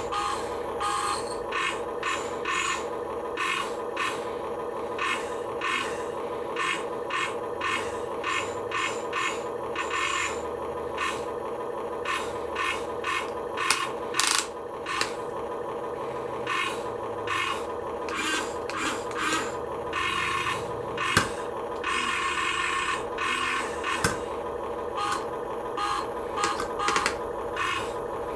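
A small 1/24-scale RC Caterpillar construction vehicle working with a steady motor-and-gear hum and many irregular clicks and scrapes of plastic parts, as it strains against a load too heavy for it to lift.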